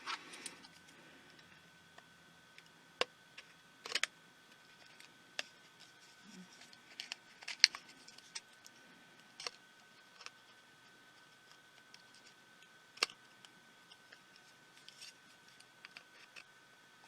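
Scattered small clicks and taps of tiny screws, a small screwdriver and plastic parts being handled while a pico projector is taken apart, about a dozen spread irregularly over the stretch. A faint steady high tone sits beneath them.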